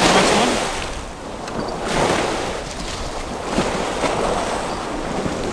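Sea waves breaking and washing against the foot of a sea wall, the surf swelling in surges at the start, about two seconds in and again near four seconds.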